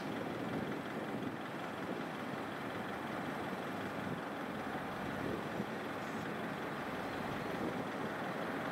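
Steady engine drone of a small Japan Maritime Self-Defense Force utility boat running under way.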